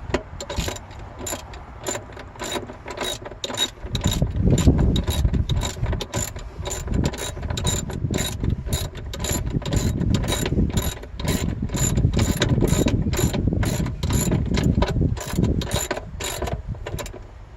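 Ratcheting spanner clicking in quick, evenly repeated strokes, about two or three clicks a second, as a 10 mm bolt on the battery hold-down bracket is tightened, with low knocking and handling noise underneath.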